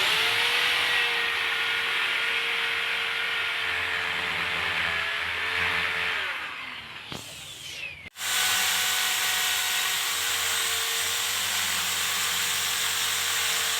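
Electric drill running steadily at full speed, then slowing with a falling whine about seven seconds in, stopping briefly and starting straight up again.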